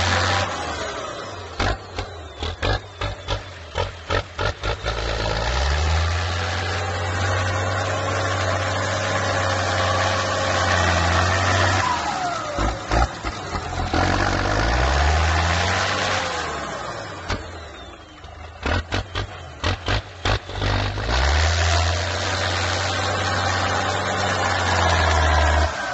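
Ford 8210 tractor's six-cylinder diesel engine working under load as it pushes dirt with a front blade: it surges loud in long pushes and eases off between them, revving up and down. Clusters of sharp knocks come in the quieter stretches.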